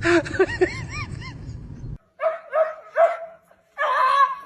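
A dog yipping and barking in short, pitched calls. About two seconds in, the background rumble cuts off abruptly and a second run of short barks follows, ending in a longer call.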